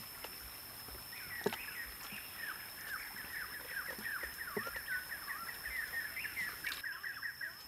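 A bird calling in a long, rapid run of short chirps from about a second in, over a steady high-pitched whine, with a couple of soft knocks.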